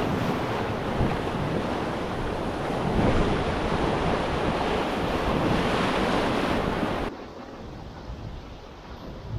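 Rushing river water with wind buffeting the microphone, a loud gusty hiss that drops suddenly to a much quieter one about seven seconds in.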